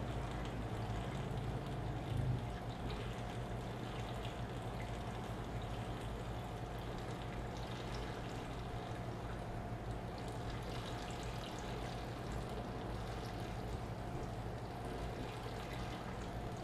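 Saltwater aquarium water circulating: a steady trickle and splash of water running into the tank, with a steady low hum underneath.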